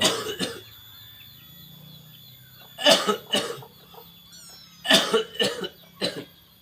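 A man coughing in fits: two coughs at the start, two more about three seconds in, a longer run about five seconds in and one last cough near the end. This is a persistent cough that has not cleared for over three weeks.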